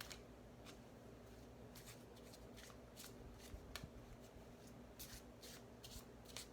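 A deck of oracle cards being shuffled by hand: faint, irregular soft snaps and slides of the cards.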